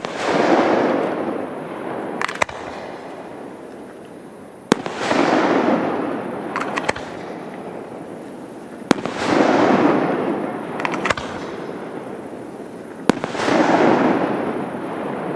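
Aerial fireworks bursting: four sharp bangs about four seconds apart, each followed by a rush of noise that swells and fades over a couple of seconds, with a few smaller pops in between.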